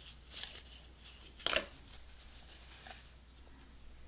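Crisp rustling and crackling of a small cardboard and paper packet being handled, with one sharp crackle about a second and a half in and fainter rustles around it.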